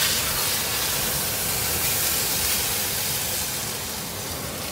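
Steak frying in a hot cast iron pan: a steady, loud sizzle that eases slightly toward the end.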